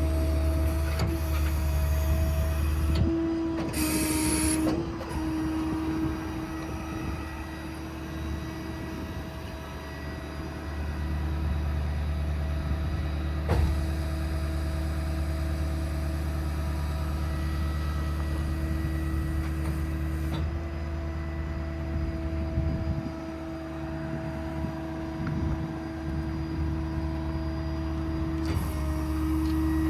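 The truck's 6.7 Powerstroke diesel running with its PTO-driven hydraulic pump engaged: a steady hum with a held tone whose pitch and level shift several times, at about three, ten, twenty and twenty-eight seconds in, as the crane's functions are worked.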